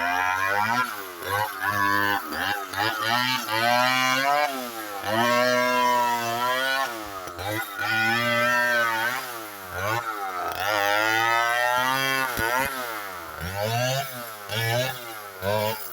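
Chainsaw cutting into a red oak trunk, its engine speed rising and falling again and again as the chain bites and bogs in the cut.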